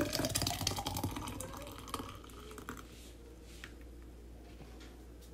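Thick watermelon smoothie poured from a blender cup into a glass, gurgling and dripping, loudest at first and tapering off after about three seconds.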